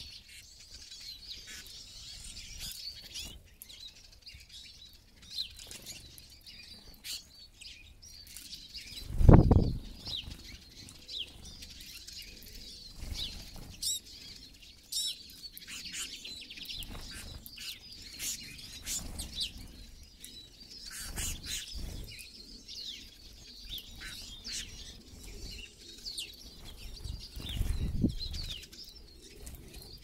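Small finches, Eurasian siskins and greenfinches, chirping and twittering in short high notes while wings flutter as birds land and take off. A loud low thump about a third of the way in, and another near the end.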